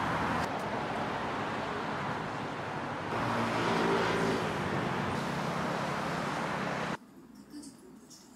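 City street traffic: a steady noise of cars passing on the road, growing louder about three seconds in. It cuts off abruptly near the end to the quiet of a room.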